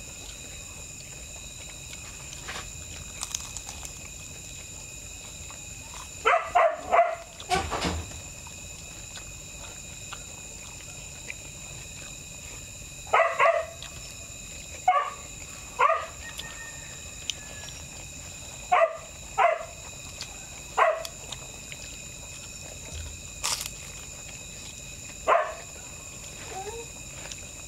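A dog barking in short calls: a quick run of several barks, then single barks and pairs every second or two, and one more near the end, over a steady high-pitched background tone.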